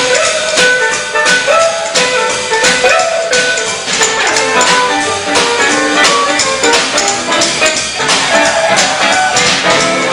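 A country boogie band plays an instrumental break with steel guitar, electric guitar, rhythm guitar, upright bass and drums, to a steady swinging beat, with sliding notes in the lead.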